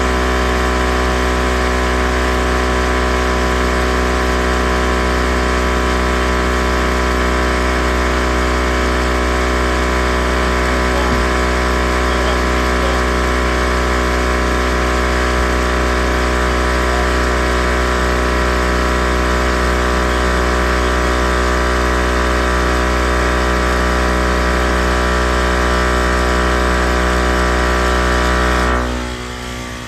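Air compressor running steadily while inflating a car tire; its hum cuts off near the end.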